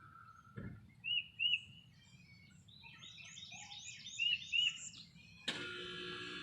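Songbirds singing: short rising chirps repeated in pairs, with a quick run of higher notes about halfway through. Near the end a steady hum with several held tones comes in under the birds.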